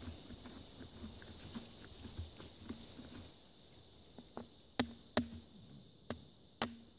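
Survival knife cutting into dry wood on a stump. First there is a soft, irregular crackle of shaving and splitting, then about five sharp clicks of wood cracking under the blade in the second half, the loudest two close together.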